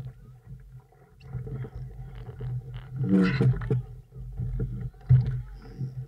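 Wind buffeting the microphone and water rushing and splashing along the hull of a small sailing dinghy in choppy water. A short moaning tone comes about three seconds in, and a hard thump about five seconds in.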